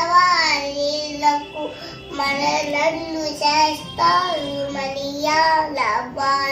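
A young girl singing solo, a melodic song in phrases with long held and gliding notes.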